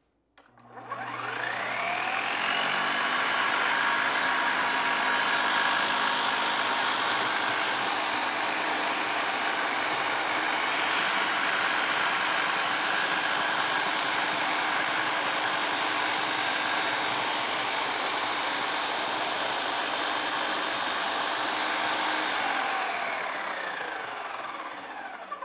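Ninja Ultima food processor motor spinning up with a rising whine, then running steadily with its slicing disc as cabbage is pushed down the feed chute, and winding down with a falling whine near the end.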